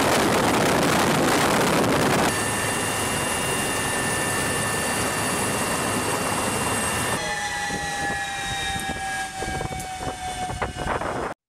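Military transport helicopter heard from inside and close by: a loud, steady rush of rotor and turbine noise with a high whine, in cut-together shots. In the last few seconds the noise thins and a whine slowly falls in pitch.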